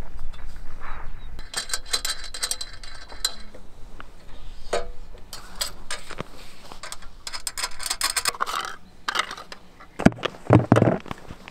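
A hand ice auger being handled: its metal parts click and rattle in two short spells of fast clicking, with a few heavy thumps near the end.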